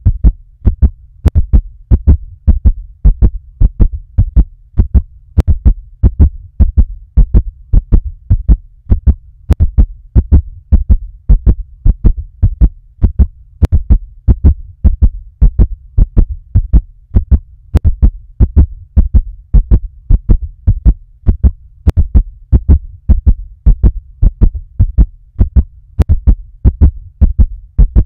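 Heartbeat sound effect: a fast, steady lub-dub of deep thumps repeating evenly.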